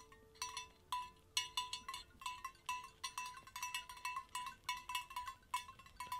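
Sheep bells clanking unevenly, several ringing strikes a second, as a flock of grazing sheep moves about.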